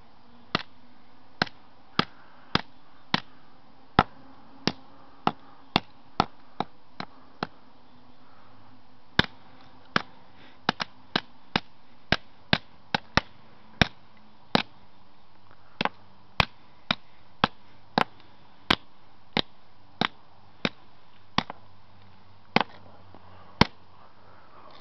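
Rapid, repeated sharp blows smashing an old LG flip phone apart, about one or two strikes a second, with a short pause about a third of the way through.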